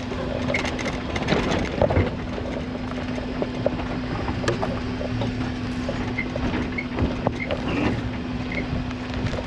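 Suzuki Jimny driving off-road over rough ground, its engine running with a steady drone, with scattered knocks and rattles from the bumpy track.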